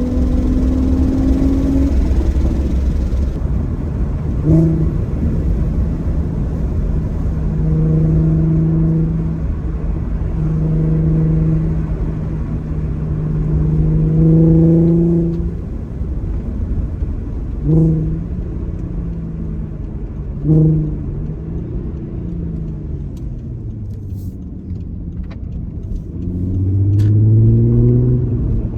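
Audi TT's 3.2 VR6 engine, fitted with new coil packs, pulling the car along with the windows down under a constant low road and wind rumble. The engine note holds steady for a long stretch, drops away, surges briefly twice, then rises as the car accelerates near the end.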